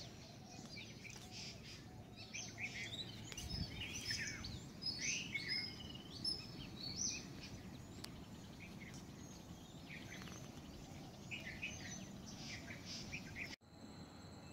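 Small birds chirping: a busy run of short, quick chirps and whistles, densest in the first half and again near the end. About a second before the end it cuts abruptly to a steady, high insect trill of crickets at night.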